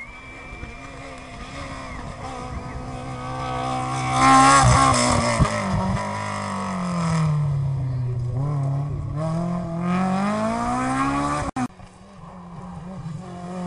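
Rally car engines at full stage pace. A BMW E30 rally car revs hard and shifts gear as it approaches and passes close, loudest about four seconds in. The revs fall away and then climb again as it accelerates. After a sudden cut near the end, a Renault Clio rally car's engine is heard revving as it arrives.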